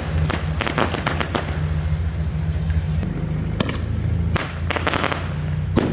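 Fireworks going off: a string of sharp bangs and crackles, thickest in the first second and a half and again in the last two seconds, over a steady low hum.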